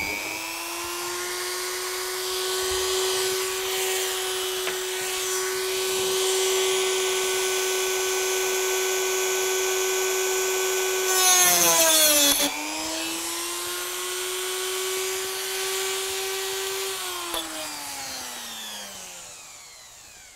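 Mini rotary tool with a diamond cutting disc spinning up to a steady high whine. About eleven seconds in, the disc cuts through the point's wire with a loud, gritty rasp lasting about a second, which drags the motor's pitch down. The pitch then recovers, and near the end the tool winds down.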